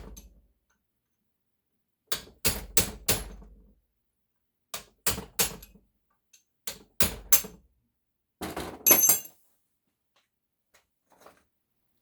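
Hammer blows on metal, struck in quick groups of three or four with pauses between, then a short clattering burst with a metallic ring about nine seconds in.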